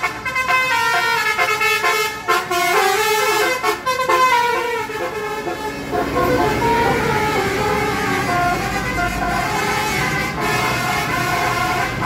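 Tour bus 'telolet' horn, a multi-tone air horn, playing a quick melody of changing notes. The notes are loudest in the first half; after about six seconds they grow fainter over engine and traffic rumble.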